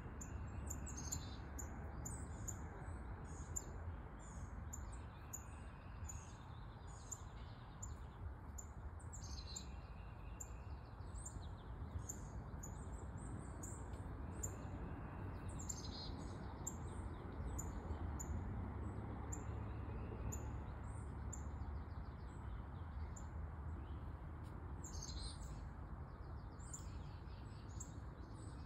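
Songbirds chirping: short high notes repeat about twice a second, with a louder trill every several seconds. A steady low rumble runs underneath.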